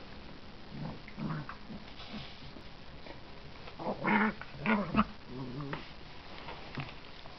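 Dogs vocalising in rough play, with short growls in several bouts; the loudest come about four to five seconds in.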